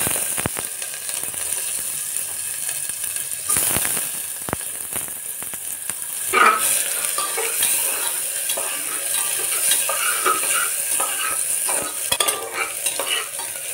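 Chopped onion and whole spices frying in hot oil in an aluminium pressure cooker, with a steady high sizzle. A few knocks come early. From about six seconds in, a steel spatula scrapes and clicks against the pot as the onion is stirred.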